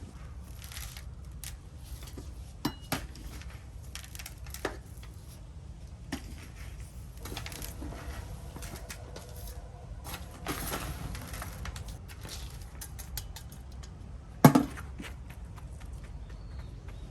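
Handling noise from repotting and training a rose: scattered clicks, clinks and light knocks over a steady low rumble, with one much louder knock late on.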